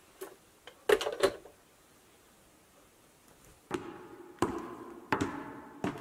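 A telephone handset clatters down with two or three quick knocks about a second in. From about four seconds in, slow background music begins: single struck notes about 0.7 s apart, each ringing out and fading.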